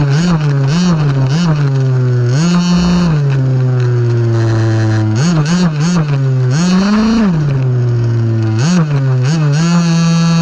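RC car's motor, heard close from a camera mounted on the car, whining as it is throttled: the pitch rises and falls in quick repeated surges, with longer held revs about two and a half seconds in and again around seven seconds.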